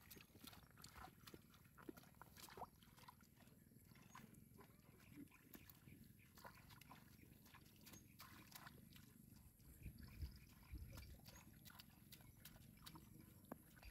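Near silence: faint, scattered small clicks and rustles over a low hum.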